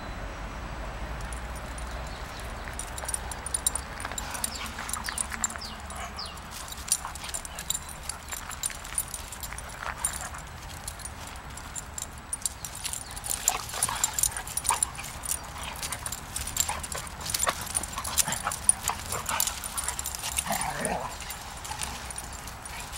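A Dalmatian and a brown dog play-fighting on a gravel path: paws scuffling and scraping on the grit, with a few short whines and yips, most of them in the second half.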